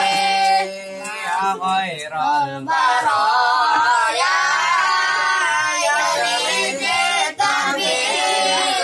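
Children's voices singing a sholawat, an Islamic devotional song, unaccompanied, with long held and gliding notes.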